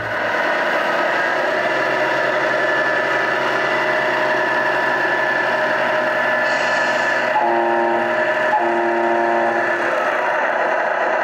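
Electronic sound unit (Tamiya MFU-03) in an RC Tamiya Knight Hauler semi truck playing a steady diesel truck engine sound as the truck drives. Partway through there is a short hiss, then two blasts on the simulated air horn, the second following almost at once.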